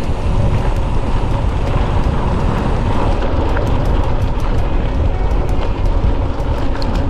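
Wind rumbling on the microphone of a camera riding on a moving mountain bike, with frequent short clicks and rattles over the rumble.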